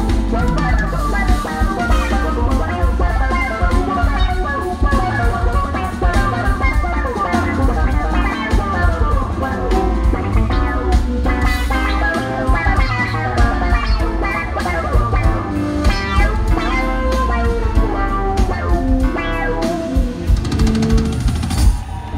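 Live band playing an instrumental passage: electric bass lines over a drum kit and keyboards, loud and continuous, heard from within the crowd through a phone microphone.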